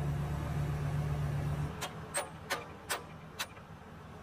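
A machine's engine running steadily at idle stops suddenly under two seconds in. About five sharp clicks or knocks follow, roughly half a second apart.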